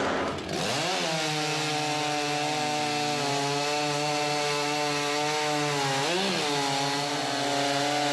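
Two competition stock-saw chainsaws running at full throttle while cutting a log side by side. They snap up to speed about half a second in and hold a high, steady pitch, which dips briefly and recovers about six seconds in.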